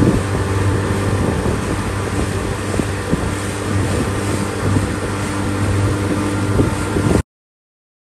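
Motorboat engine running at a steady pace across a lake, with wind buffeting the microphone; the sound cuts off suddenly about seven seconds in.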